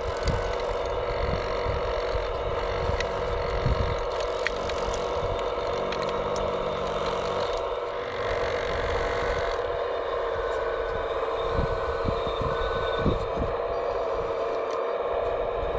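Radio-controlled scale construction machine's motor and hydraulic pump running with a steady whine, under low rumbling and scattered clicks and knocks of the model at work.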